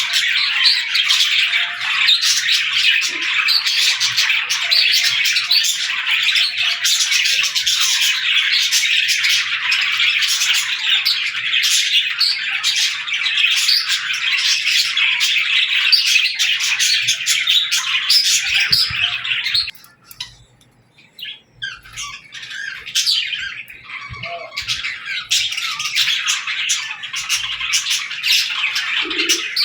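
A flock of small birds chirping and chattering densely and continuously. About two-thirds of the way through, the chatter cuts off suddenly and there is a couple of seconds of near quiet. It then comes back gradually, a few calls at first and then the full chatter.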